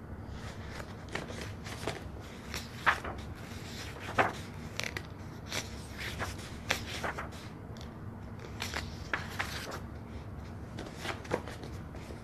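Irregular small clicks, taps and scrapes of objects being handled close to the microphone, with two sharper knocks about three and four seconds in.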